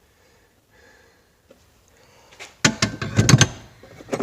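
Old metal hand tools clattering and clinking as they are handled and set down, a quick run of knocks starting more than halfway in after a near-silent pause.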